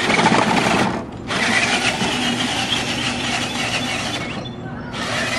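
Electric drive motors of a small excavator robot running, cutting out briefly about a second in and again for about half a second near the end.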